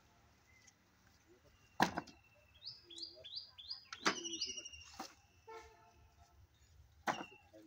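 Thin sawn wooden slats clattering as they are tossed onto a pile of offcuts: four sharp knocks spread unevenly, the first the loudest. A small bird calls in between with quick runs of short falling chirps.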